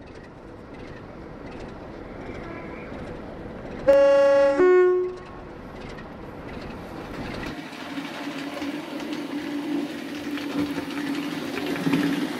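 Train sound: a rumble building up, then a short two-tone horn blast about four seconds in, a lower note followed by a higher one. After that a locomotive's steady engine drone runs on, growing louder near the end as the train passes.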